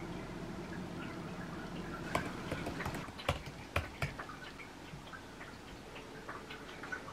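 Sharp clicks and clinks of a ceramic bowl and a metal spoon and fork being set down on a table, two louder knocks among them, over a low steady hum that fades out about three seconds in. Lighter scattered taps follow, like fingers on a tablet keyboard.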